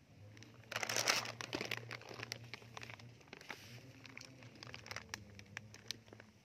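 Plastic cat food bag crinkling and rustling in a hand, a burst of crackling about a second in and then irregular crinkles, over a low steady hum.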